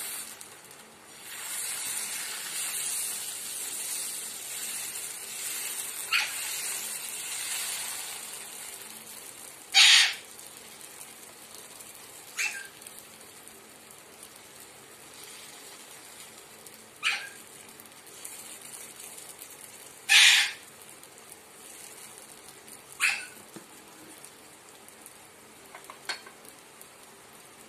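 Dosa batter sizzling on a hot flat griddle (tawa) as it is poured and spread with a ladle, the hiss dying down after about eight seconds. About seven short, sharp sounds of unknown source come a few seconds apart throughout, the loudest about ten and twenty seconds in.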